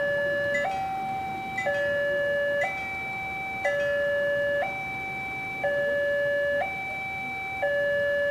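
Electronic warning alarm of an Indonesian railway level crossing, sounding from the horn loudspeaker on the signal mast. It alternates a lower and a higher tone, about one second each, repeating steadily, which signals that a train is approaching and the crossing is closed.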